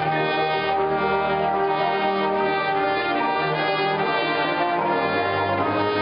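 College marching band's brass section playing loud sustained chords, the notes shifting every second or so, with a low bass note coming in near the end.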